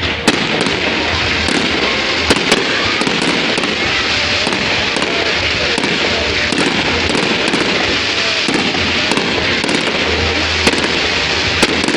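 Fireworks going off densely: continuous crackling with sharp bangs scattered throughout and a low rumble beneath.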